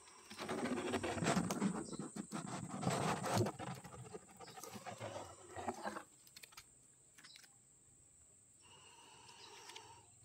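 Leaves and twigs of a bush rustling and crackling in dense clicks for about six seconds, then stopping, leaving a faint steady background.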